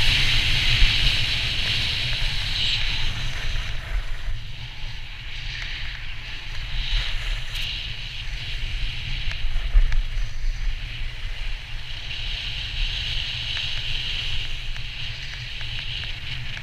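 A snowboard's base and edges hissing and scraping over groomed snow, the hiss swelling and fading with the turns, over a steady low rumble of wind on the camera's microphone.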